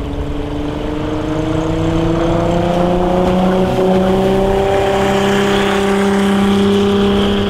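A VW 2.8-litre VR6 engine powering a small runabout boat, running hard at speed with its pitch climbing slowly and steadily.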